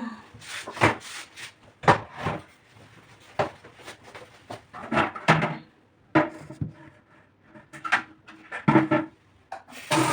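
Irregular knocks, clatter and rubbing as objects are handled and moved about, a dozen or so separate knocks with scraping in between.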